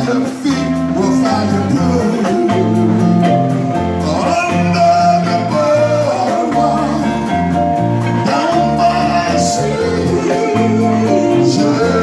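A live band plays with a man and a woman singing a duet into microphones, over electric guitar, a low bass line and a steady beat.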